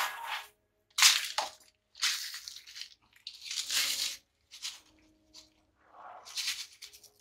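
Granular bonsai substrate being scooped and poured into a ceramic pot around exposed roots: a run of short gritty pours, roughly one a second.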